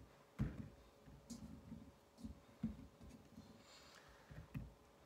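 Faint, soft thuds of whole green tomatoes being set down one by one on a wooden cutting board, about seven or eight knocks, the first and loudest about half a second in.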